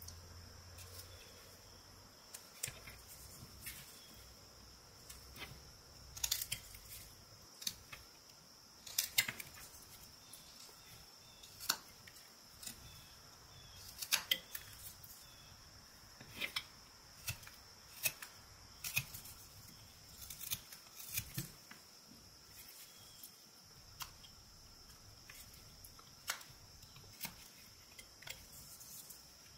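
Whittling knife, made from a modified boning knife, paring and slicing eastern white pine in short, crisp strokes at irregular intervals, about one every second or two, over a faint steady high hiss.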